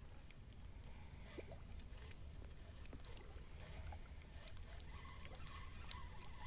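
Faint ambience aboard a small boat on open water: a steady low rumble with small scattered clicks and light water sounds against the hull.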